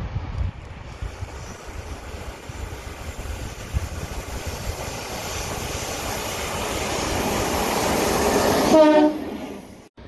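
A 48 class Alco-designed diesel-electric locomotive running light (no train) as it approaches: engine rumble and wheel noise growing steadily louder, then one short horn toot about nine seconds in, after which the sound fades out quickly.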